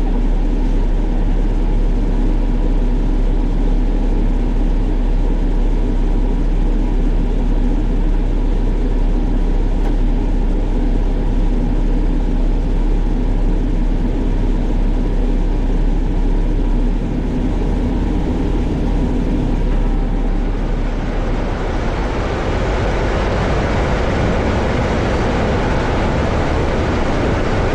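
Motorcoach diesel engine running with a steady low drone. About twenty seconds in, a louder rushing noise joins it and holds.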